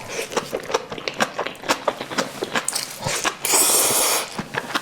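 Close-miked eating sounds: a steady run of wet chewing clicks and mouth smacks. About three and a half seconds in comes a louder slurp lasting under a second, then the chewing clicks resume.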